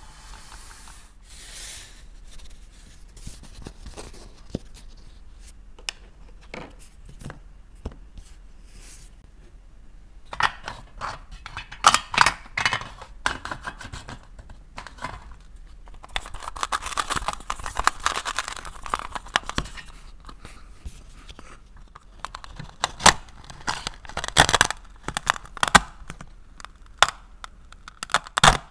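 Plastic toy fruit and vegetables handled in a metal muffin tin, with many clicks and knocks of plastic on metal and plastic. Several louder stretches of scraping and tearing noise come through, and near the end a plastic toy knife cuts into a toy watermelon.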